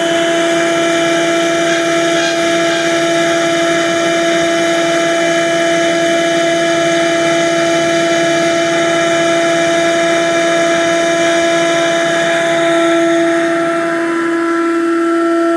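Delta RC51 20-inch planer running, its four-knife cutterhead spinning with a loud, steady whine.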